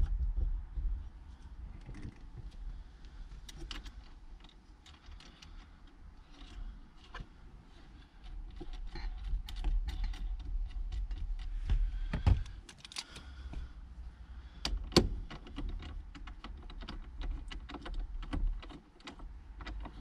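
Hands working on a car steering wheel's hub: irregular small clicks and rattles of the wheel's parts being handled, with a few louder knocks in the second half over a low rumble.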